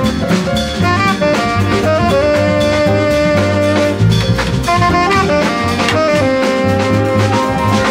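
Jazz quartet recording: a saxophone plays a melody of held and moving notes over piano, bass and a drum kit keeping time.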